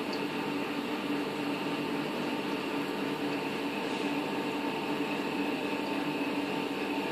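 Steady mechanical hum with a few held tones, from the reef aquarium's running equipment.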